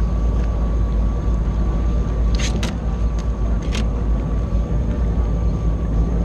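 Yamaha personal watercraft engine running steadily: a low drone with a steady whine above it, and a few brief sharp clicks near the middle.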